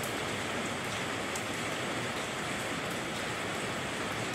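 Steady rain falling, an even hiss with the odd sharper drop.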